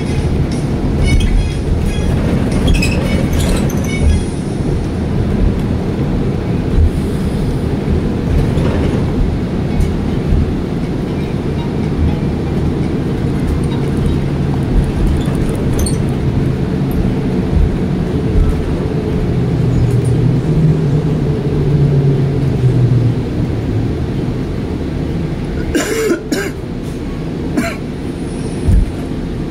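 Steady low rumble of road and engine noise heard from inside a moving vehicle, with a brief rattle about four seconds before the end.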